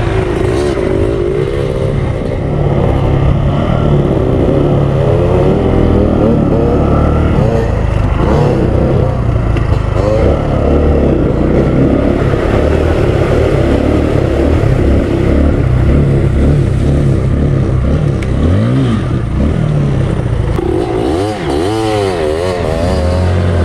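Kawasaki KLX 150L single-cylinder four-stroke trail bike engine running under load while riding, its revs rising and falling over and over with throttle and gear changes.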